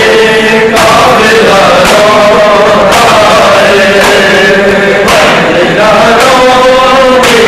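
A group of men chanting a nauha, the Shia mourning lament for Muharram, in unison. Sharp slaps come about once a second in time with it from rhythmic chest-beating (matam).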